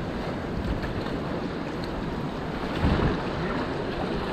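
Whitewater rapid rushing steadily around a packraft on a river running at about 1600 cfs, mixed with wind buffeting the microphone. There is a brief louder low rush about three seconds in.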